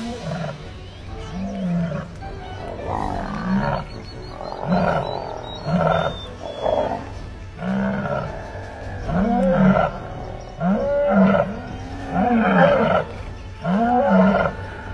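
Male lion roaring: a long bout of repeated deep calls about one a second, growing louder from about nine seconds in.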